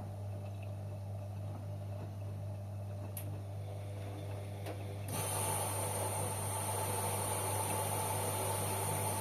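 Washing machine with a steady low hum and a few faint clicks, then about five seconds in the water inlet valve opens and water hisses steadily into the machine as it fills.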